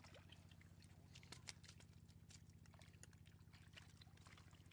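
Near silence: a faint steady low hum with scattered faint clicks.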